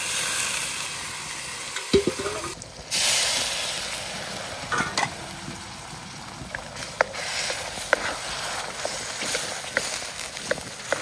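Red chilli paste and vegetables sizzling in an iron wok as the clams' cooking water is poured in. Later a spatula stirs, with scattered sharp knocks against the pan.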